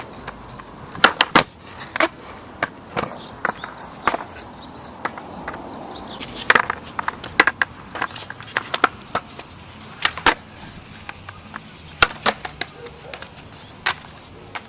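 Skateboard rolling on pavement: a steady wheel rumble broken by many sharp clacks at irregular intervals.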